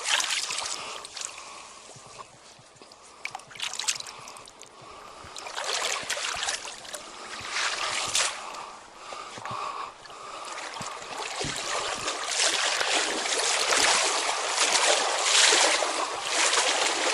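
Stream water flowing and splashing, rising and falling in loudness and louder in the second half.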